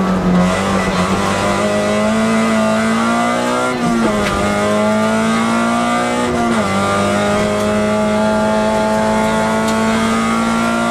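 Toyota Yaris rally car's four-cylinder engine heard from inside the cabin at full throttle. Its note climbs slowly through the gears and drops at shifts about four and six and a half seconds in.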